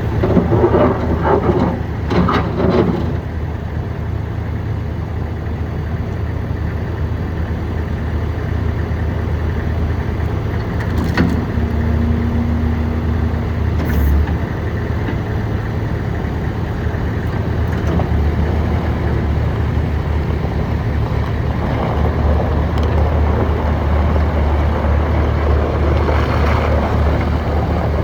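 Thomas 2200 ProTough skid steer loader running with a steady low engine hum. The sound grows louder and busier for a few seconds at the start, and again in the last six seconds. A steady higher whine is held for about two seconds near the middle.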